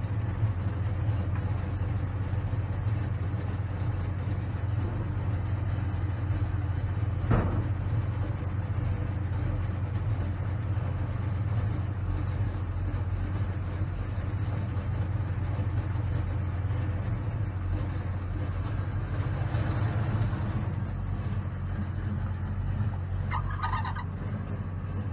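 A vehicle engine idling steadily, with a single sharp knock about seven seconds in.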